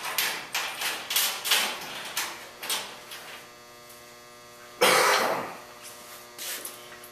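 Loose metal hardware and parts clinking and rattling as they are handled in cardboard boxes, over a steady electrical hum. About five seconds in there is a sudden loud rush of noise lasting under a second, the loudest sound.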